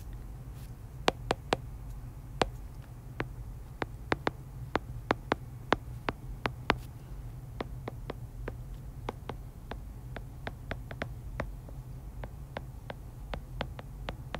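Stylus tip tapping and clicking on an iPad's glass screen during handwriting: irregular sharp ticks, several a second, over a steady low hum.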